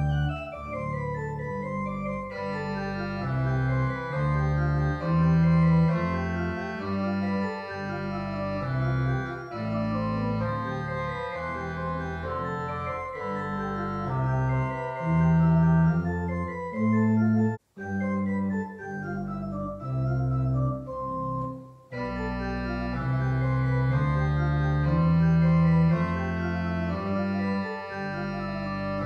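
Church organ playing slow, sustained chords over a changing bass line. The sound cuts out for an instant a little past halfway through.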